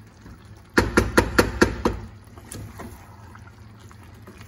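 Wooden spatula stirring and lifting rice and chicken in a granite-coated cooking pot. About a second in it knocks quickly against the pot about six times, each knock ringing briefly, followed by softer stirring noise over a low steady hum.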